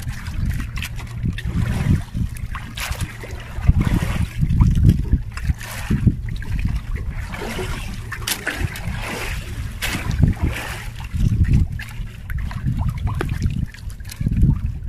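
Sea water lapping and splashing against a small wooden outrigger boat, with wind buffeting the microphone in an uneven low rumble.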